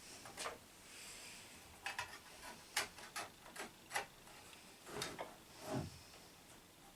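Faint clicks and light scraping of metal parts being handled while the blade of a cordless circular saw is refitted and its bolt started by hand. There is a quick run of sharp clicks in the middle, then softer rubbing.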